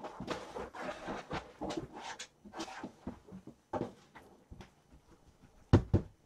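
Rustling and scraping handling noises with scattered clicks, then two sharp knocks in quick succession near the end.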